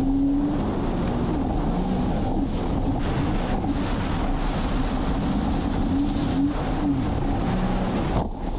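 Sea-Doo jet ski engine running under way, its pitch rising and falling several times with the throttle, under heavy wind rush on the microphone and water noise.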